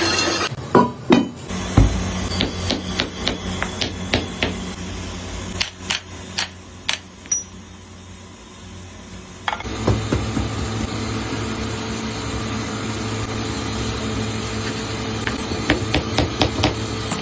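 Hammer blows on metal during temple-bell making: a run of sharp separate strikes, some ringing briefly. About nine and a half seconds in, a steady machine hum starts and continues, with lighter knocks over it.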